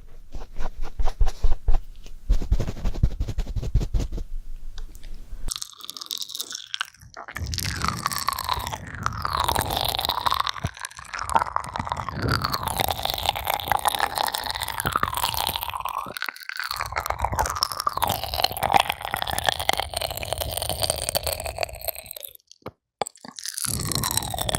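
Ear pick tip scraping and rubbing close against a microphone's ear, crunchy and scratchy. Quick tapping clicks come first; from about five seconds in it turns to continuous rubbing with a wavering squeak, which breaks off briefly near the end.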